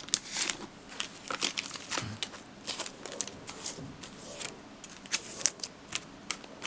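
A clear plastic bag crinkling as trading cards are handled in it: an irregular run of small crackles and rustles.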